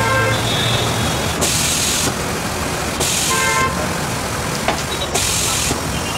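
Road traffic noise with vehicle horns tooting briefly at the start and again about three and a half seconds in, plus several short bursts of hiss and a few faint knocks.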